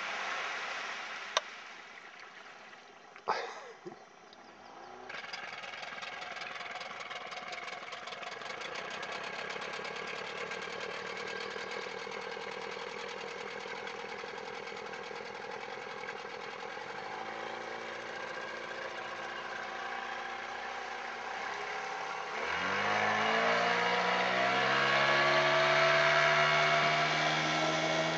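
Tiller outboard motor on a Lund SSV 16 aluminium boat. After a couple of sharp knocks it runs at a steady, pulsing idle. Then it is throttled up, and from about 22 seconds in it gets much louder with its pitch climbing as the boat accelerates away.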